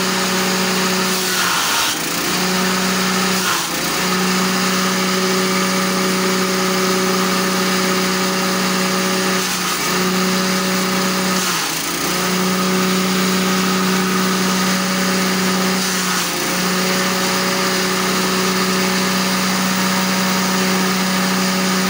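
Small petrol engine driving a grass chopper, running steadily at high speed. Every few seconds it briefly drops in pitch and recovers as grass stalks are fed in and chopped.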